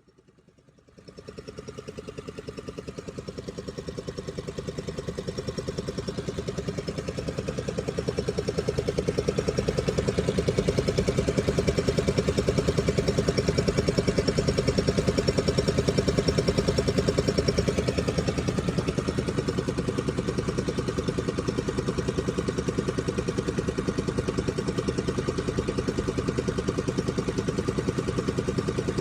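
Mercedes-Benz A150's 1.5-litre four-cylinder petrol engine running steadily with a fast, even pulse: the weird sound its owner is asking about. It comes in abruptly about a second in and grows louder over the next several seconds.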